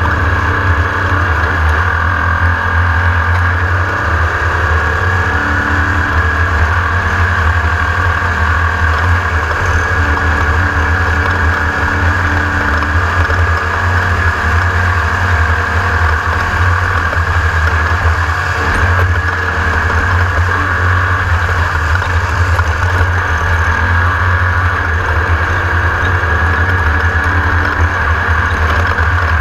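Engine of a Class 1600 off-road race buggy, an air-cooled VW-based flat-four, running hard and steady at racing speed with little change in pitch.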